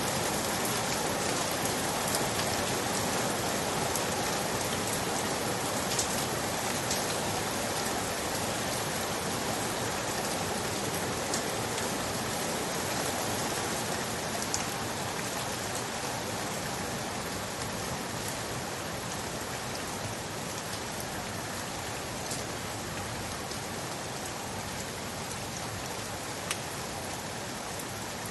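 Steady rain falling on a surface, a dense even hiss with occasional louder individual drops.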